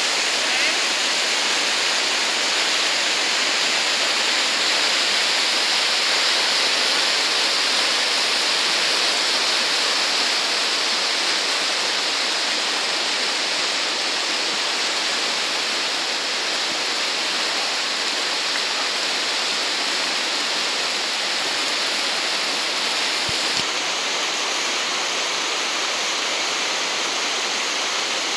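Whitewater rapids rushing steadily over boulders in a shallow river.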